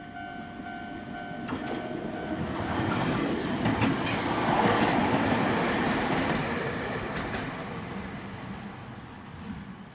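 Level-crossing alarm of the old standard type ringing in a regular repeating pattern, then cutting off about two seconds in while the train is still coming; the early stop is this crossing's habit. A Jōmō Electric Railway 800 series electric train (ex-Tokyo Metro 03 series) then passes: wheel and rail noise swells to a peak with a few sharp wheel clicks, then fades away.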